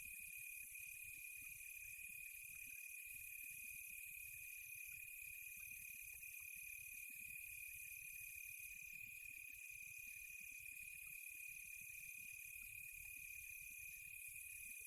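Faint, steady insect chorus of countryside ambience: one continuous high trill with a shriller band above it, over a faint low rumble.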